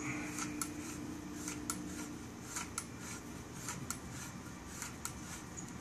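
Faint metal-on-metal clicks and scrapes as a Japanese Type 11 light machine gun's receiver is unscrewed by hand from its barrel jacket: light ticks at an uneven pace.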